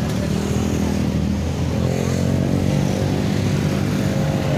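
Road traffic moving off across a railway level crossing: motorcycle and small van engines running and accelerating, with a steady mix of low engine notes that rise in pitch a couple of times.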